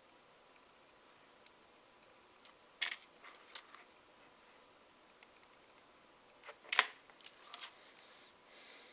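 Nickels clinking against each other as a handful is sorted and laid out coin by coin: a couple of sharp clinks about three seconds in, and a quick run of them between six and a half and eight seconds, the loudest near seven seconds.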